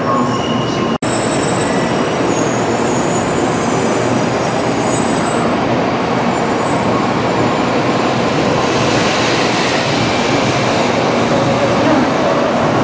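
Shinkansen bullet train running slowly past a station platform: a steady rushing rumble with faint high-pitched squeals in the first half. The sound cuts out for an instant about a second in.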